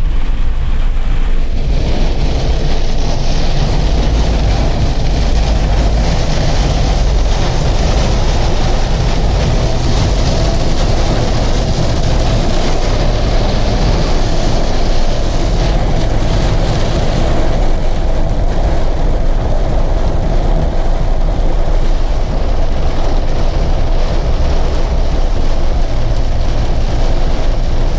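Car driving through a heavy thunderstorm: a steady rush of road noise and rain on the car, with a strong low rumble and no breaks.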